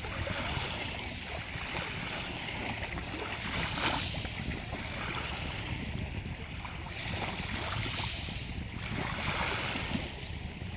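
Stream water flowing, a steady rushing that swells every second or two, with one brief louder splash about four seconds in.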